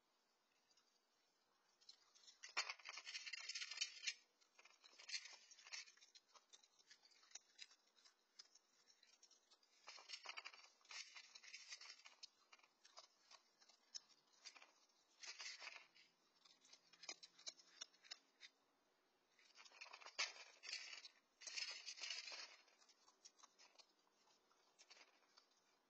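Raccoon eating dry cat kibble from a shallow metal pan close to the microphone: bouts of crisp crunching and crackling, four main ones with short quiet gaps between.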